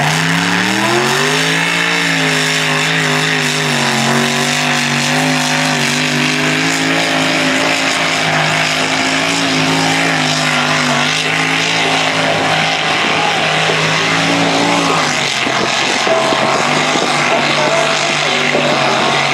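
Worked Ford 351 V8 on methanol with Enderle fuel injection, in a super mini modified pulling tractor, held at high revs under full load while pulling the sled. Revs climb over the first two seconds and then hold steady, and the engine note ends about fifteen seconds in.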